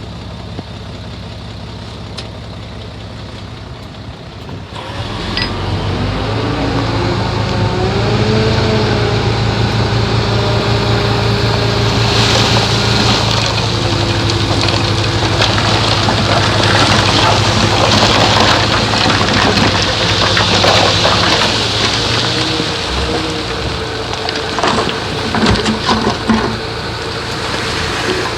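Heavy diesel engine of an earthmoving machine, most likely the bulldozer. It idles, revs up about five seconds in and runs hard under load with a clattering noise, then eases off, with scattered clanks near the end.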